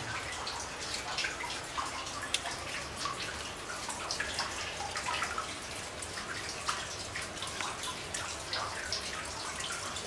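Water dripping from the roof of a low-seam coal mine into a pool of standing water on the floor: many irregular drips over a faint steady hiss.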